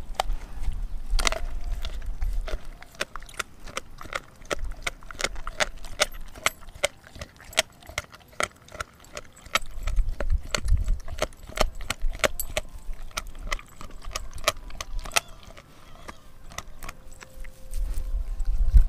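Doberman chewing a raw frozen pig's foot: an irregular run of sharp cracks and clicks, several a second, of teeth crunching on bone, with low rumbles about halfway through and near the end.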